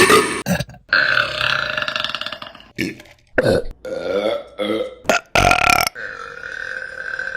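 A string of women's burps, one after another. A long burp comes about a second in, then several short ones in quick succession, then a long drawn-out burp held at a steady pitch near the end.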